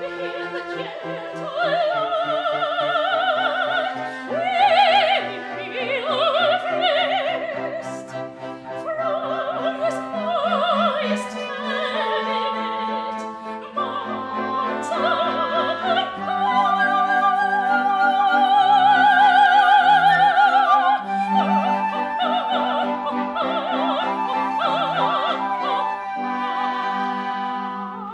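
Operatic soprano singing with wide vibrato, accompanied by a small chamber ensemble of violin, cello and flute.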